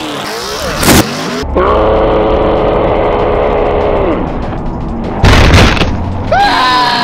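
Edited soundtrack of music and cartoon sound effects over a truck crash: a loud bang about a second in, a long held note, then a heavier booming crash around five seconds in.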